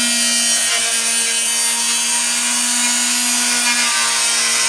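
Small Dremel power saw running with a steady whine as its blade cuts through the wall of a plastic 5-gallon bucket, sawing off the bottom.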